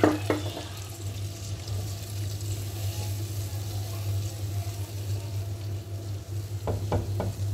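Freshly added water bubbling with fried masala in a pan as a plastic spatula stirs it, over a steady low hum. A few light knocks of the spatula against the pan come at the start and near the end.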